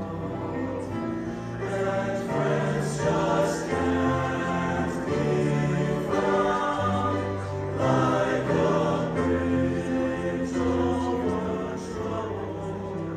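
Men's high-school choir singing in harmony, holding long chords that change every second or two.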